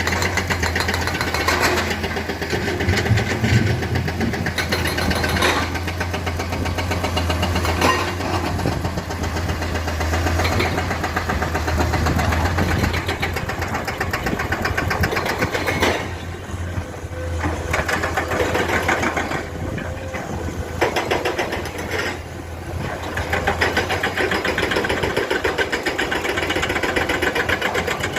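Komatsu hydraulic excavator's diesel engine running hard while digging and loading rock, a steady heavy drone that eases off briefly a few times.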